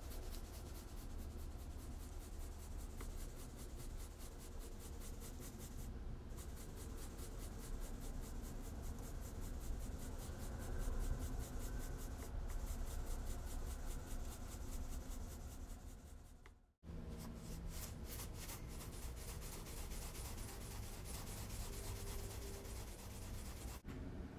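Seasoning shaken from spice shakers onto venison backstraps on a plastic cutting board: quick, even rattling shakes with granules pattering down, stopping abruptly twice.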